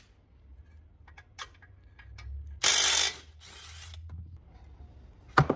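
Ratchet wrench working the brake caliper bolts: scattered light clicks, then a loud burst of about half a second two-thirds of the way in and another short one near the end.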